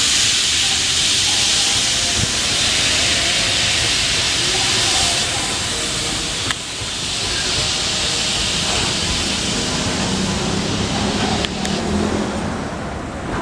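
A container train hauled by a WAG-12 electric locomotive running past: a loud, steady hiss over the low rumble of the wagons, the hiss easing about five seconds in.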